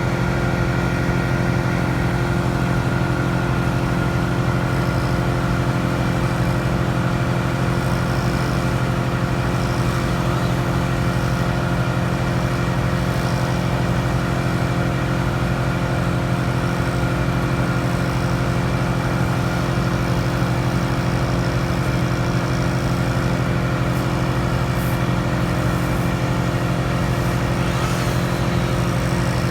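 A large engine running steadily at one constant speed, a low even drone with no revving.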